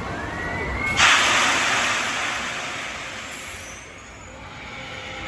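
Pneumatic drop-tower ride venting compressed air. A sudden loud hiss starts about a second in and fades away over the next two to three seconds.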